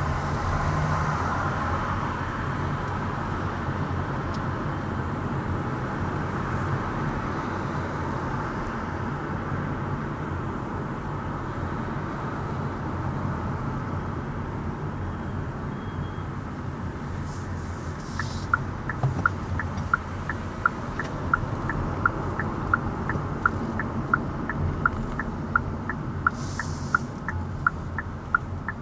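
Steady road and engine noise from a car on the move, heard inside the cabin. About two-thirds of the way in, the turn-signal indicator starts ticking, about one and a half ticks a second.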